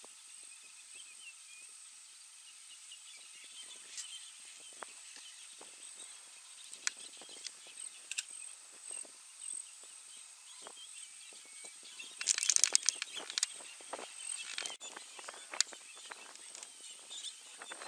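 Outdoor bush ambience: a faint steady high hiss with scattered sharp clicks and snaps, and a short burst of rapid crackling about twelve seconds in.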